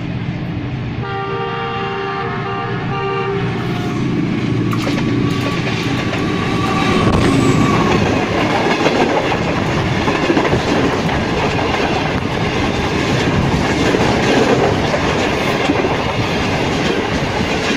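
A ZCU-20 diesel locomotive sounds its multi-tone horn for about two and a half seconds as it approaches, then passes. Its passenger coaches roll by close up, with a loud steady rumble and the clickety-clack of wheels over the rail joints.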